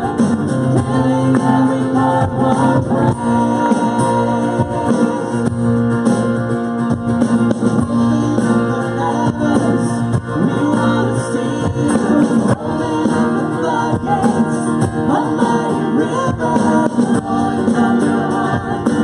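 Live worship band playing: a woman singing into a microphone over acoustic and electric guitars and a drum kit, steady throughout.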